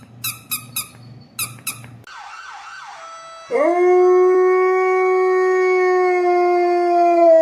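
A dog gives a quick run of short yaps, then a few short falling whines. About three and a half seconds in, it breaks into one long, loud, steady howl.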